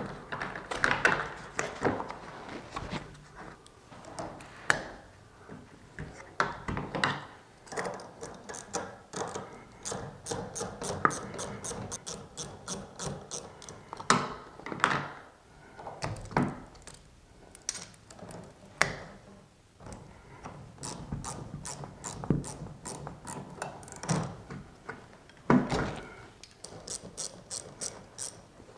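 Ratcheting box-end wrench backing off the cable adjustment nuts on a slide-out's bracket, its pawl clicking in runs of quick, even clicks. Louder clunks and knocks come between the runs as the wrench and locking pliers are repositioned on the metal bracket.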